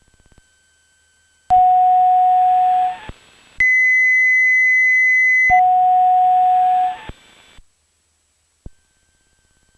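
Steady electronic tones on the aircraft's intercom audio. A mid-pitched tone over hiss starts about a second and a half in, then a higher, piercing steady tone runs for about two seconds, then the mid tone over hiss returns for another second and a half and cuts off.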